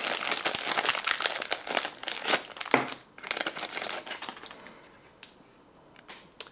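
Plastic ration packaging crinkling as it is handled: a small zip-lock bag and the wrapped items inside. The crinkling is dense for about three seconds, then thins to a few light rustles and clicks.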